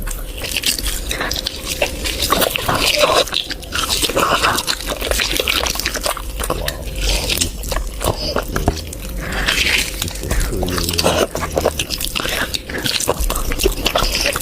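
Mukbang eating sounds: wet chewing and biting of curried meat and eggs, with many quick irregular smacking clicks.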